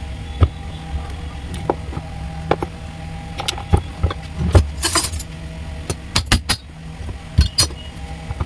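Metal hand tools clinking and tapping against car parts: a dozen or so sharp clicks, with a dense, loud cluster around the middle. A steady low hum runs underneath.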